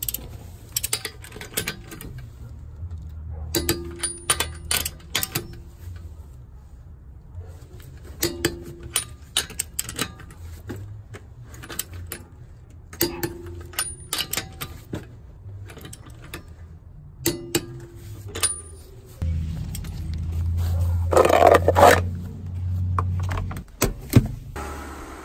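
A wrench ratcheting and clicking on the nuts of a steel wheel as they are tightened to torque in a crisscross pattern, in several short bursts of quick metal clicks a few seconds apart. About 19 seconds in, a louder, longer rumbling clatter takes over.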